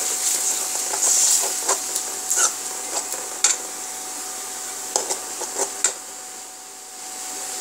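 Steel spoon scraping and stirring masala paste around a metal kadai: irregular rasping scrapes and light clinks over a steady hiss, thinning out after about six seconds.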